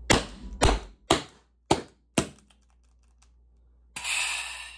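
Five sharp plastic clacks about half a second apart as a First Strike paintball pistol and its Grimburg 12-gram CO2 magazine are handled, the magazine being stiff and hard to click in. A short hiss follows near the end.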